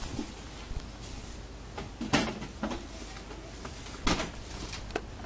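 About four light knocks and clicks as a jar and a small box of instant coffee are picked off a supermarket shelf and handled, over steady low background noise.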